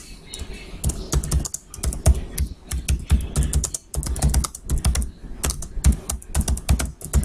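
Typing on a computer keyboard: quick, uneven runs of key clicks with short pauses between words.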